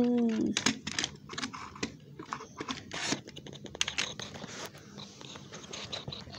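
A child's hummed engine noise ends about half a second in. Then comes a string of irregular small clicks, scratches and rustles: hands handling a toy car on carpet close to the microphone.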